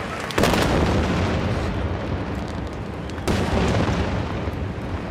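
Aerial firework shells bursting: two loud booms about three seconds apart, each followed by a long rolling echo.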